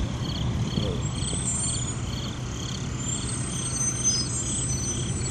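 Military convoy cargo trucks driving past, a steady low engine and road rumble that eases slightly after the start. A high chirp repeats about twice a second over it.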